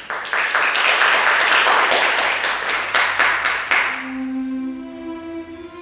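Audience applauding for about four seconds, then dying away as music with long held notes begins.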